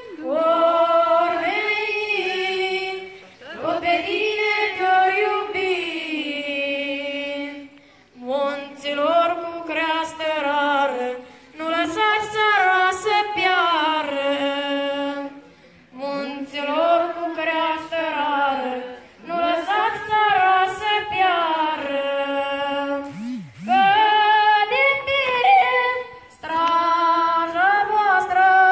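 Group of women singing a Romanian song unaccompanied, in long held phrases with short breaks between them.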